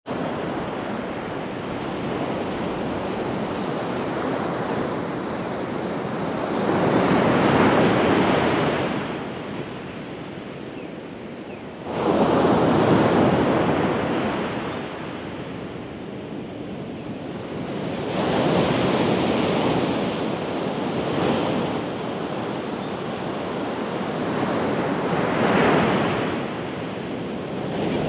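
Pacific Ocean surf breaking on a sandy beach: a steady wash of water with four waves swelling and crashing, the loudest breaking suddenly about twelve seconds in.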